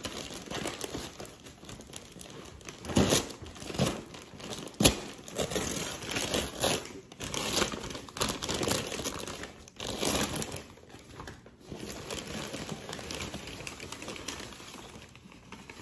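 Paper mailing bag crinkling and rustling as it is handled and pulled open, in irregular bursts, with a sharp tap about five seconds in.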